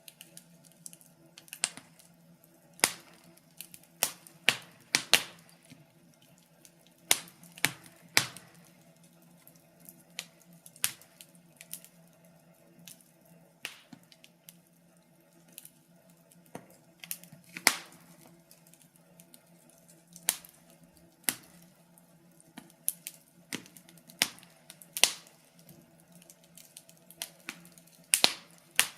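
Wood fire crackling: sharp, irregular pops and snaps, roughly one to three a second and uneven in loudness, over a faint steady low hum.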